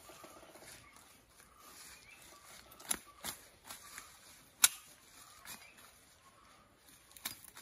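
Leafy undergrowth rustling as plants are pulled up by hand, with a few sharp snaps of stems breaking, the loudest a little past the middle.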